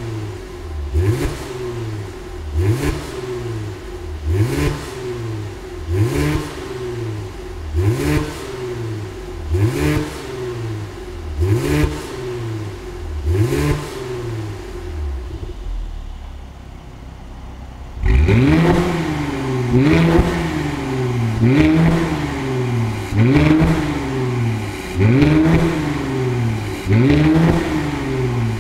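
Mercedes-AMG C43's twin-turbo V6 being blipped in place through an Armytrix Valvetronic cat-back exhaust, in quick revs about once a second. It drops back to idle briefly, and from about two thirds of the way through the revs come much louder and raspier, as with the exhaust valves switched from quiet to open.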